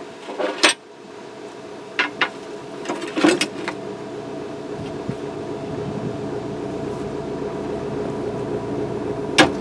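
Steel rock bar knocking and scraping against the steel shroud and excavator bucket as the shroud is pried onto the bucket teeth: a few sharp metal clanks in the first few seconds and one more near the end, over a steady machine hum.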